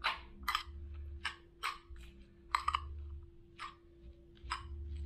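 Metal spoon clicking and scraping against a glass bowl as rice noodles are tossed and mixed: light, irregular clinks, about two a second.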